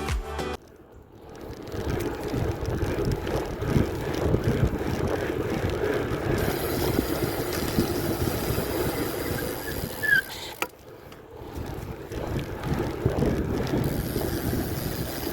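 BMX bicycle ridden on a street: a steady rush of tyre and road noise that cuts out sharply twice, with a short high squeak about ten seconds in.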